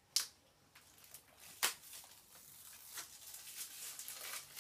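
Sonny Angel blind-box packaging, a small cardboard box and its foil wrapper, handled and torn open by hand. Two sharp crackles come in the first second and a half, then steady crinkling from about three seconds in.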